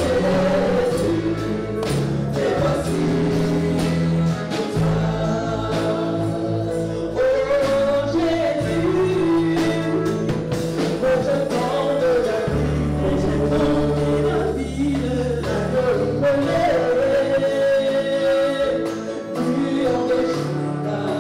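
Congolese gospel song: voices singing a melody over sustained bass notes and steady percussion.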